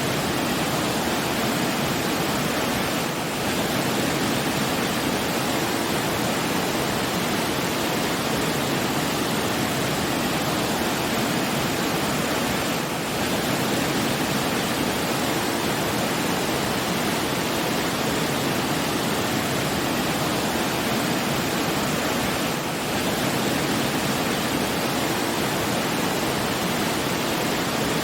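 Steady rushing of running water, an even hiss with a full low rumble, dipping briefly three times about ten seconds apart.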